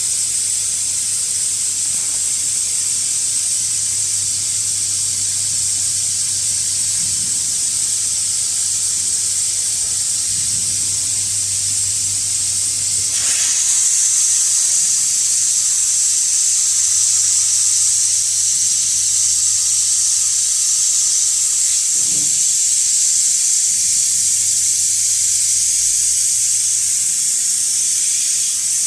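A steady, high-pitched hiss, like gas or steam escaping under pressure. It gets louder about halfway through and cuts off suddenly near the end.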